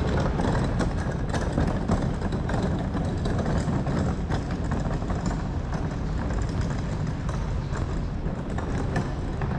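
Outdoor ambience heard through a camera carried on foot: a steady low rumble with many small knocks and clicks from handling and footsteps.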